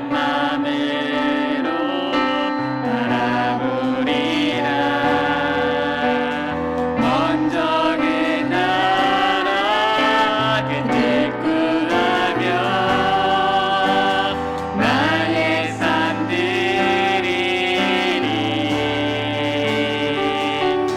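Praise team vocalists singing a worship song in harmony over piano accompaniment, with held chords and a slowly stepping bass line.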